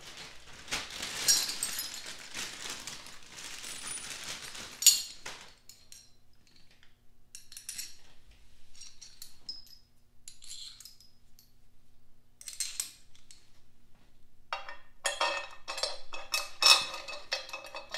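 Metal clinking and scraping as an aluminium timing cover is handled and set against an engine block, with scattered clicks, then a run of ringing clinks near the end as long bolts are handled and slid into the cover.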